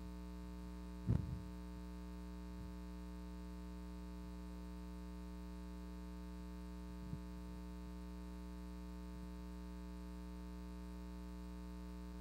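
Steady electrical mains hum with a stack of higher overtones, picked up in the recording. There is one brief thump about a second in.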